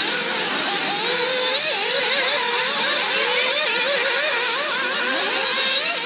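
Several nitro engines of radio-controlled racing cars running at high revs together, their overlapping whines rising and falling as the cars accelerate and back off.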